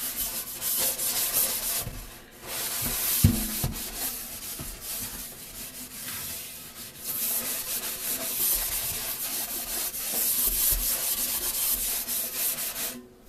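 Sink being scrubbed with a Norwex Spirinet scrubbing cloth and cleaning paste: a steady rasping rub, with a short lull about two seconds in and a single knock just after.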